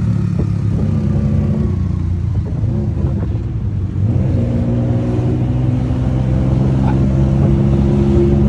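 A vehicle engine running steadily, its pitch shifting and rising a little about four seconds in.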